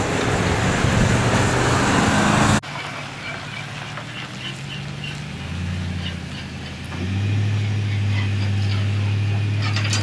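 A pickup truck towing a loaded equipment trailer passing on the highway, a loud rush of road noise that cuts off suddenly about two and a half seconds in. Then an engine running steadily at a low pitch, growing louder about seven seconds in.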